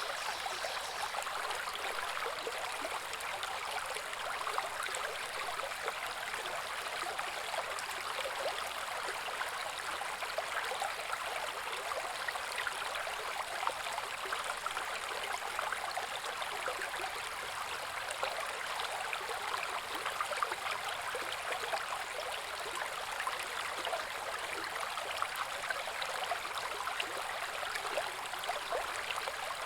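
Small woodland brook babbling over rocks: a steady, even rush of running water with fine splashing and trickling detail.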